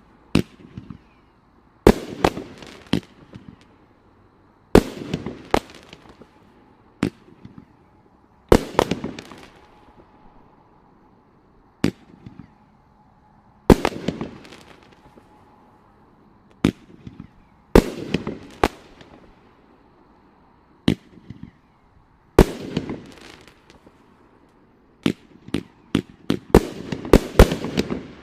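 A 16-shot consumer firework cake firing, a shot every few seconds. Each shot is a sharp report followed by several smaller pops and a crackle as the crossette and lace effects break. A quick run of shots near the end closes it out.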